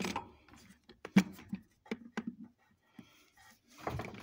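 Scattered clicks and knocks of small metal tools and carburettor parts being picked up and handled on a workbench, with one sharp click about a second in and a rustle of handling near the end.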